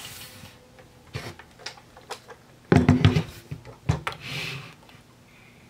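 Hard plastic clicks, knocks and rubbing as a DX Build Driver toy belt and its Full Bottles are handled, with a heavier cluster of knocks about three seconds in.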